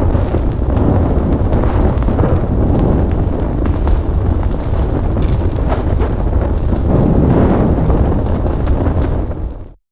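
Sound effect of a large fire burning: a dense, steady low rush of flames with scattered crackles, fading out quickly near the end.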